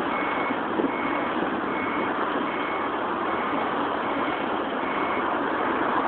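A vehicle's reversing alarm beeping at one high pitch, about seven short beeps a little over one a second, stopping about a second before the end, over a steady rush of outdoor background noise.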